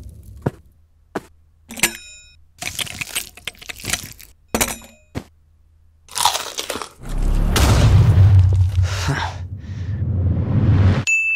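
Sharp crunching and cracking sound effects, a handful of separate cracks, as a slice is pulled off a pizza built from LEGO bricks. Then a loud, noisy sound effect with a low rumble lasts about four seconds and is the loudest part. A bright ding rings out near the end.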